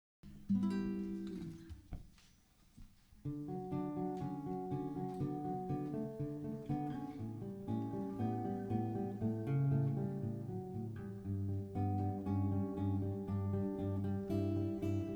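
Acoustic guitar playing a song's instrumental intro: a chord rings out and fades, then about three seconds in a steady picked pattern of notes begins and carries on.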